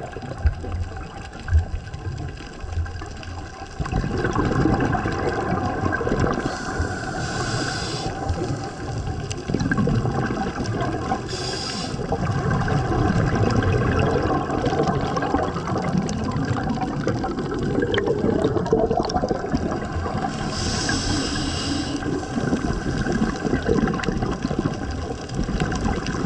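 Air bubbling out of a scuba regulator held underwater, a steady loud bubbling that comes in about four seconds in. Three short hisses of regulator breathing come over it.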